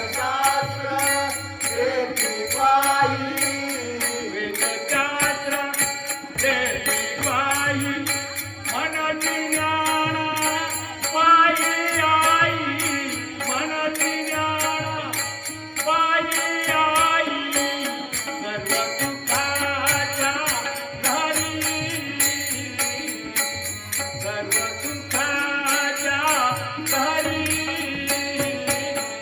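Devotional abhang singing with melismatic, wavering melody lines, accompanied by small jingling hand cymbals that keep a steady beat.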